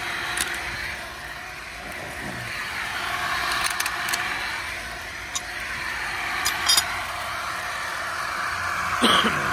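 Drummond 1 HP shallow well pump running steadily, with water gushing out of its open discharge pipe onto the ground as it is pumped off after priming. A few light metallic clinks of hand tools being handled come near the start, around the middle and a little after.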